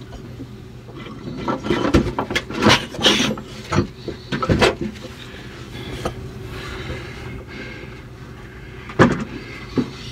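Scattered metal knocks and clinks of hand tools and hardware being handled, several in the first half and two more near the end, over a steady low hum.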